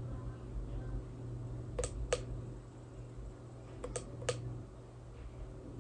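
Sharp clicks from a hard plastic light-up basket being handled: two pairs of clicks, about two seconds apart, over a low steady hum.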